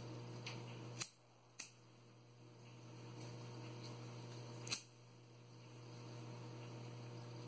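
Two small clicks about a second in, then a single sharper click about two-thirds of the way through as a pocket lighter is struck to heat-seal the cut end of a grosgrain ribbon. A steady low hum runs underneath.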